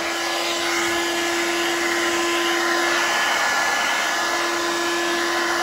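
Handheld hair dryer running steadily, blowing hot air at a fridge compressor: an even rush of air over a steady motor hum.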